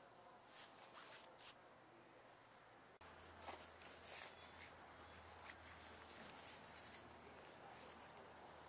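Near silence: a few faint rustles and clicks early on, then a low steady hum that comes in suddenly about three seconds in.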